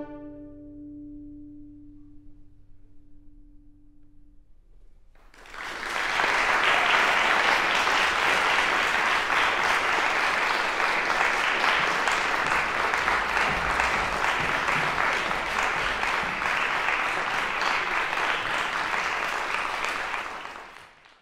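The cello's last note rings on and dies away over about four seconds, then audience applause breaks out about five seconds in, holding steady until it is cut off just before the end.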